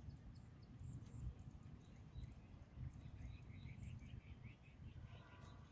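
Near silence: a faint low rumble with scattered faint, short high bird chirps, and a brief faint call near the end.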